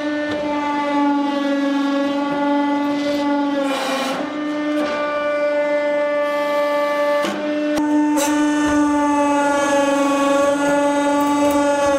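Hydraulic press running under load, a loud steady whine crushing a solid steel pétanque ball flat. The tone sags slightly in pitch a few times and is broken by a few short clicks.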